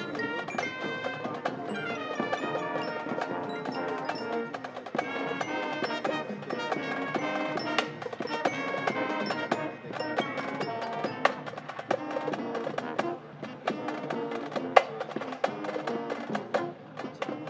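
High school marching band playing its field show, a passage led by percussion: many quick struck, pitched notes from the mallet instruments over drums, with one sharper accent about fifteen seconds in.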